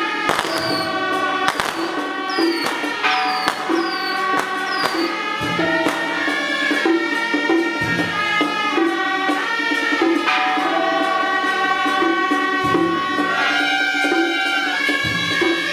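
Taiwanese temple procession band playing a folk melody on side-blown flutes over a steady drum beat of about two strokes a second, with light metallic percussion.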